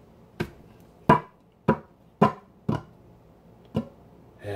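Six sharp taps or knocks on something hard, each ringing briefly, coming about every half second with a longer gap before the last.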